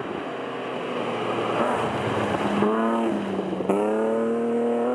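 BMW 3 Series rally car driven hard through a gravel corner: engine and gravel noise at first, then the engine revving up as it accelerates away, with a sharp crack about three and a half seconds in and a steadily climbing engine note after it.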